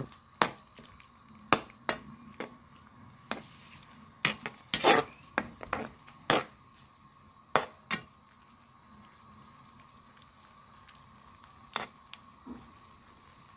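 A metal ladle stirring squid simmering in soy sauce and vinegar, scraping and clinking against the pan a dozen or so times over the first eight seconds, then twice more near the end.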